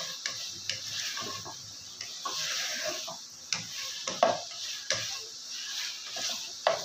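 Wooden spatula scraping and knocking against a metal wok as fried chicken pieces are stirred, with irregular strokes over a steady sizzle of hot oil.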